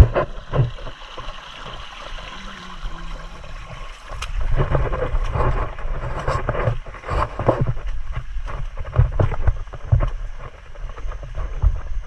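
Wind rumbling on the microphone and irregular footsteps and rustling on a grassy dirt trail, the rumble picking up about four seconds in.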